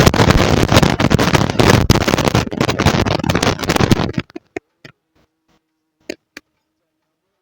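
Loud crackling, rustling noise that cuts off suddenly about four seconds in, followed by a few scattered clicks.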